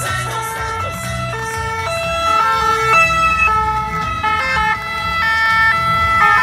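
Several French ambulances sounding their two-tone sirens at once, the alternating notes overlapping out of step, over the low rumble of the vans' engines as they drive past slowly.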